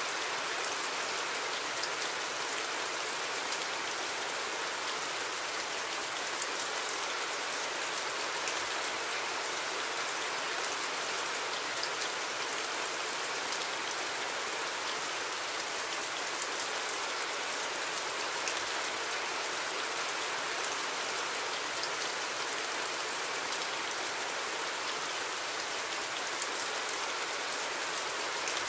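Steady rain: an even hiss with faint scattered ticks of drops.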